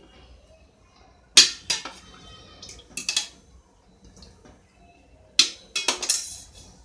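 Metal spoon clinking against metal cookware in three short clusters of sharp, ringing clinks, as spoonfuls of cooking oil are measured into a frying pan.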